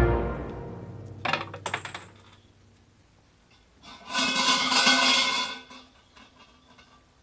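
Coins tossed into a wooden offering box clatter and clink, then about four seconds in a shrine bell is shaken, jangling for about a second and a half.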